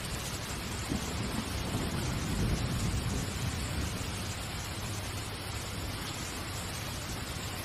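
Steady hiss, with a low rumble that swells about a second in and dies away by about four seconds.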